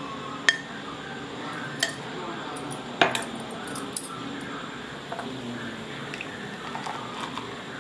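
A drinking glass clinking and knocking on a countertop and against other kitchen things, four sharp clinks over the first few seconds. Near the end, thick blended cold coffee is poured softly into the glass.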